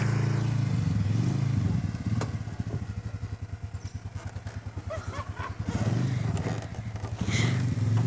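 Polaris Sportsman 500 ATV's single-cylinder four-stroke engine running: it starts steady, drops about two seconds in to a slow, lumpy idle with distinct separate firing pulses, then picks up again in the last couple of seconds.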